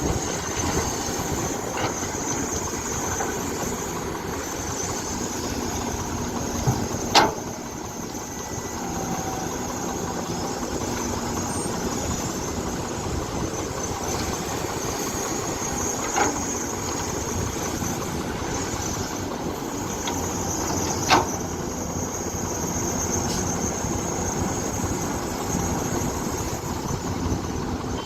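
Excavator diesel engine running steadily, with three sharp knocks: the loudest about seven seconds in, then two more around the middle and after two-thirds of the way.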